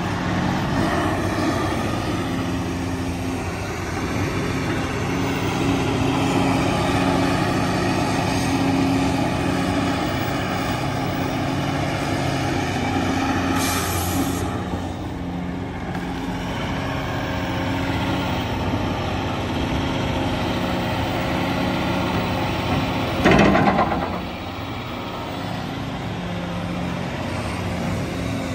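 Cat 349E hydraulic excavator's diesel engine running steadily under load as it digs and swings. About halfway through there is a hiss of dirt pouring out of the raised bucket, and about two-thirds of the way in a sudden loud sound lasting under a second.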